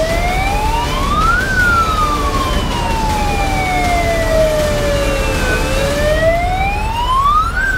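Emergency vehicle siren wailing in slow sweeps over a steady low rumble. It rises to a peak about a second and a half in, falls slowly for about four seconds, then rises again near the end.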